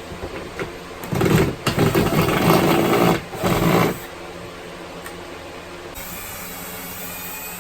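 Power drill running in three short bursts, from about a second in to about four seconds in, backing out a screw. A steady fan hum runs underneath.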